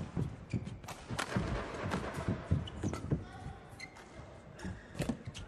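Badminton rally: sharp racket strikes on the shuttlecock, mixed with players' footsteps thudding on the court.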